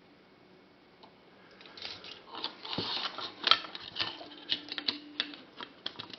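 Irregular small clicks and taps of metal tools and an XLR plug being handled while a wire is soldered onto the plug's pin, starting about a second and a half in after a quiet moment.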